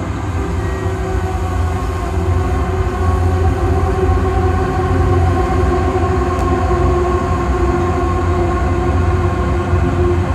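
Live drone metal / ambient drone music: a loud, steady wall of deep rumbling bass with several long held tones layered above it and no beat, swelling slightly a few seconds in.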